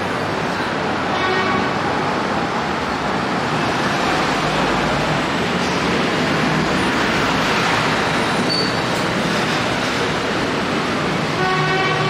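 Busy city road traffic passing, a steady rush of engines and tyres, with a brief pitched tone about a second in and again near the end.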